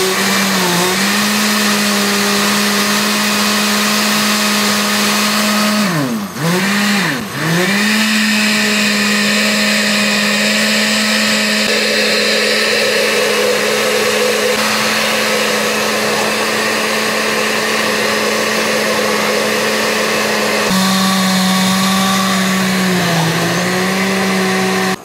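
Oster countertop blender running on its liquefy setting, puréeing a green mix of greens and water: a steady motor whine that briefly drops in pitch twice, about six and seven seconds in, then recovers, and cuts off at the end.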